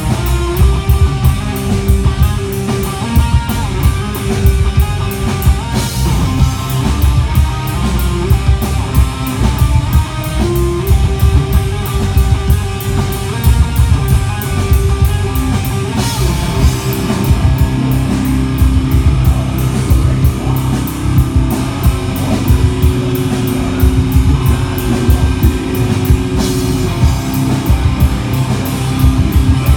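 Live heavy metal band playing: distorted electric guitars over fast, dense drumming with bass, recorded loud through a smartphone microphone.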